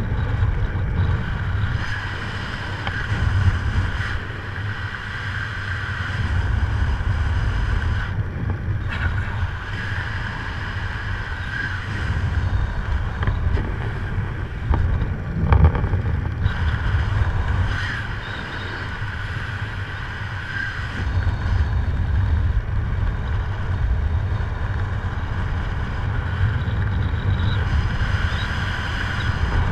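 Wind buffeting the camera microphone while descending under an open parachute canopy: a steady low rumble with a thin, faint whistle above it.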